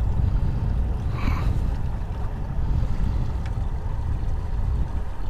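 Low, steady rumble of a small fishing boat moving slowly across calm water, with a short faint higher sound about a second in.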